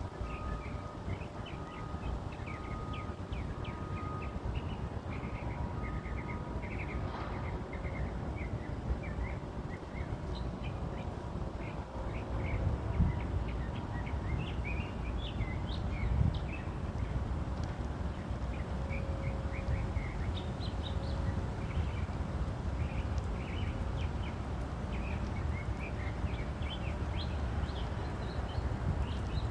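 A songbird singing in quick series of short, high chirps over a steady low rumble of city traffic noise.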